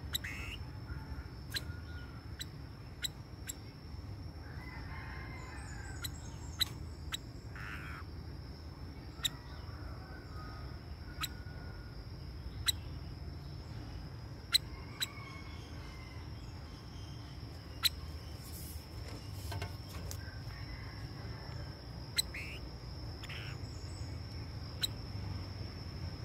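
Faint, scattered short calls from a caged decoy laughingthrush (khướu bông cúc). Sharp clicks come every second or two over a steady high thin whine.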